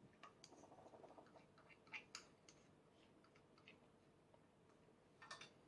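Near silence, with faint scattered small clicks and wet mouth sounds from a baby sucking and chewing on his own fingers.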